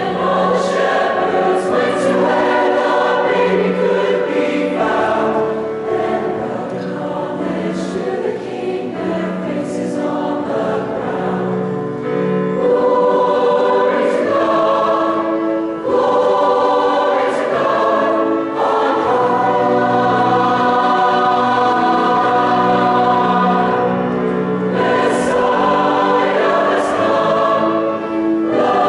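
Mixed choir of male and female voices singing in harmony, holding sustained chords with short breaks between phrases.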